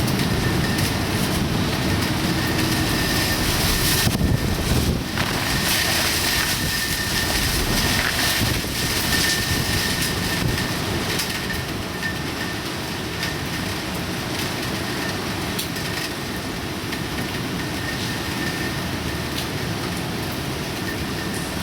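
Typhoon wind and rain as a loud, steady rushing noise, strongest about four to five seconds in and easing slightly in the second half, with a faint high whistle running through much of it.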